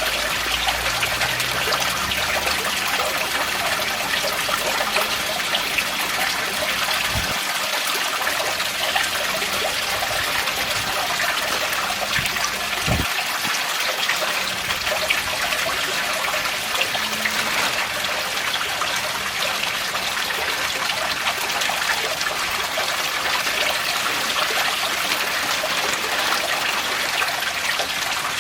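Steady trickling, splashing water flowing into a koi pond, with two brief low thumps about seven and thirteen seconds in.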